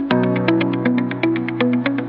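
Electronic background music: quick, evenly spaced synth notes, about six a second, over a held bass note, with the harmony shifting right at the start.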